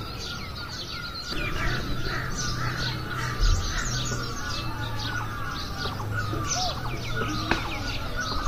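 Several songbirds chirping and calling over each other in a busy chorus of short, quick high notes.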